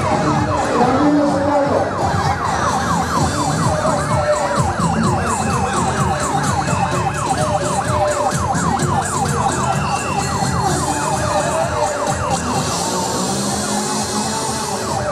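Ambulance-style siren on a van with a red cross and blue light, sounding a fast yelp that rises and falls several times a second, over the noise of a dense street crowd.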